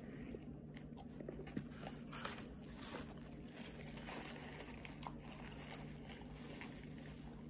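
A person biting into and chewing a chicken sandwich close to the microphone: soft, scattered crunches and wet chewing over a faint steady hum.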